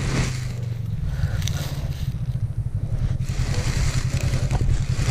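Wind buffeting the camera's microphone: a steady low rumble that flutters rapidly, with a few faint knocks.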